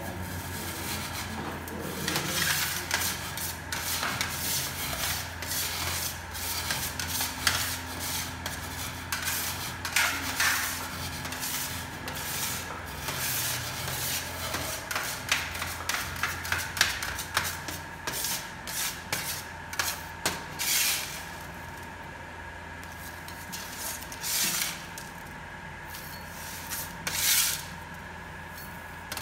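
Cremated bone fragments being crushed and ground with a wooden pole inside an urn, an irregular crunching and grinding, mixed with a metal scraper rasping bone pieces across a steel tray. The crunching is dense for the first twenty seconds or so, then thins to a few separate scrapes, over a steady background hum.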